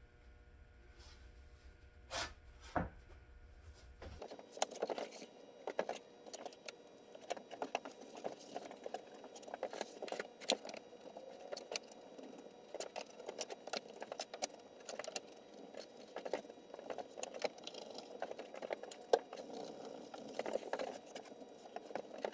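One-handed bar clamps being placed and squeezed tight along a glued plywood strip: a busy, irregular run of small clicks, rattles and scrapes. It starts about four seconds in, after two single clicks.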